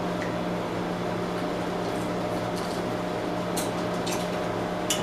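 Steady low electrical or mechanical hum of a room appliance, with a few faint short clicks.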